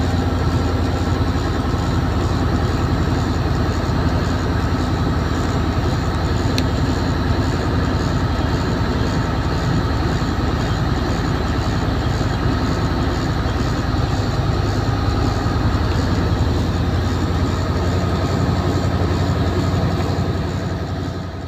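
Heavy truck's diesel engine running steadily under way, a low drone heard from inside the cab, easing off near the end.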